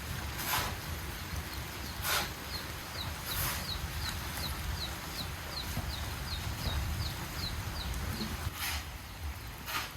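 Chickens: a run of short, high, falling peeps, about three a second for several seconds, among a few brief scratchy noises and a low steady rumble.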